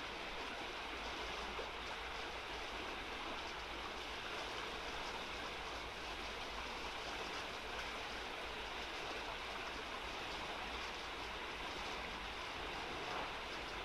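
Steady rushing of a shallow, fast-flowing river as water runs over a riffle.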